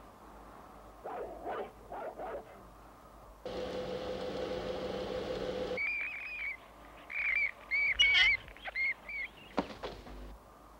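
Cartoon soundtrack: a steady hum for about two seconds, then a run of short, high, repeated chirping squeaks from caged small white animals, ending in a sharp knock.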